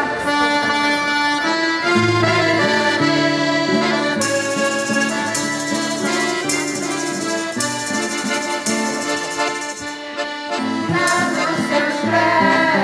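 Two accordions and an acoustic guitar playing a traditional folk tune as an instrumental passage, without singing. Through the middle a bright hiss comes in about one-second pulses.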